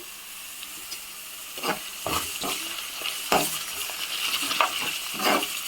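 Onions, green chillies and ginger-garlic paste sizzling in hot oil in a pan, with a spoon stirring and scraping against the pan in short strokes from about a second and a half in.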